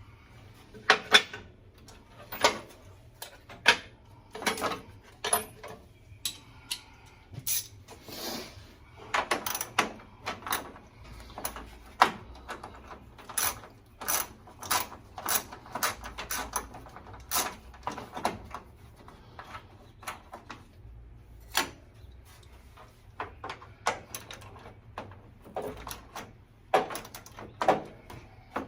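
Hand tools working on the engine while the fan is being unbolted: an irregular string of sharp metal clicks and clanks, some in quick pairs, with short gaps between them.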